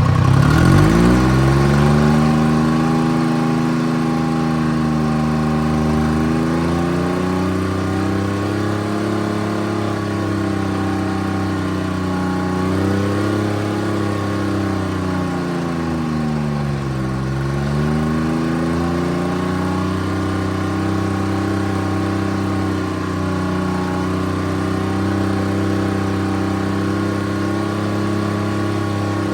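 Timberjack 225D skidder's diesel engine running. Its speed rises in the first couple of seconds, then holds steady, sagging and recovering twice, about 13 and 17 seconds in.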